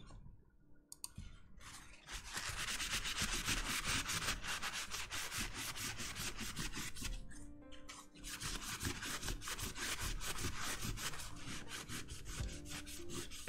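Paper towel scrubbing a small brass lion-head plate with Brasso polish: rapid, even back-and-forth rubbing strokes, about five a second, with a short pause about halfway through.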